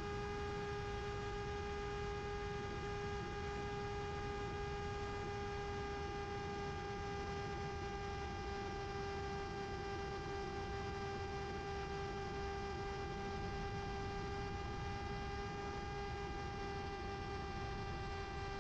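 Steady electric whine with a stack of overtones over a constant rush of noise, recorded aboard a Mini Drak electric FPV flying wing in flight. The pitch holds level throughout.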